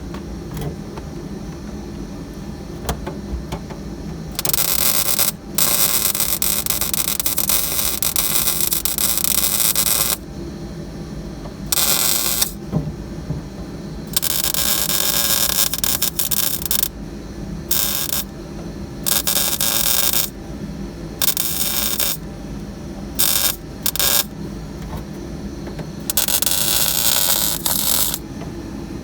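Welding the floor pan to the frame rail: the arc crackles in repeated on-off bursts, one long run of about four seconds early on, then many shorter bursts of a second or less, and a two-second run near the end.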